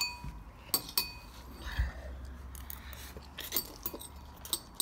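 Metal chopsticks clinking against a ceramic bowl several times, short ringing taps spaced irregularly while noodles are stirred and picked up.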